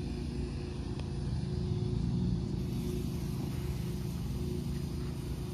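A motor running steadily with a low, even hum, like a vehicle engine idling.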